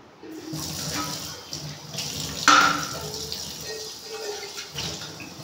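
Water running steadily, with one sharp hit about two and a half seconds in.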